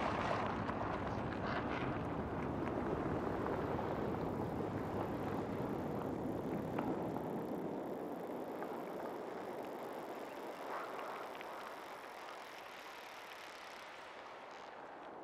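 Forest field recording with a steady rushing noise and a few faint crackles, fading gradually over the second half.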